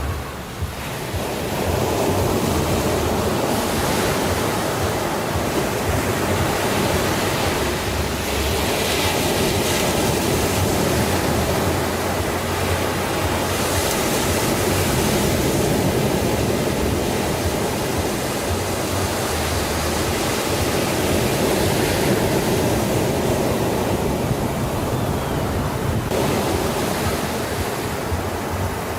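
Sea surf: a steady rush of waves washing in, swelling a little louder now and then.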